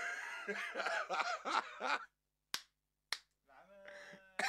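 A man's voice, laughing and exclaiming, for about two seconds, then two sharp smacks a little over half a second apart, followed by a faint steady tone near the end.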